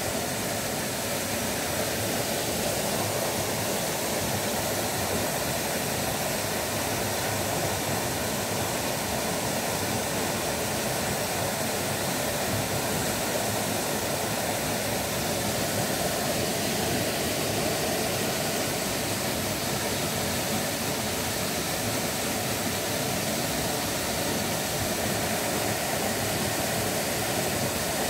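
Steady, even rushing of a waterfall pouring into a pond.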